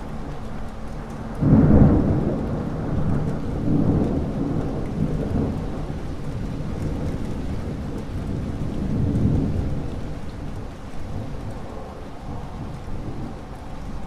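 Thunderstorm: steady rain with a sudden clap of thunder about a second and a half in. The thunder rolls on in low rumbles that swell again twice and slowly die away.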